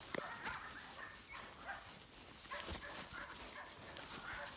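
A small dog giving a string of short yips and barks, several a second apart, over the crunch of steps in dry grass.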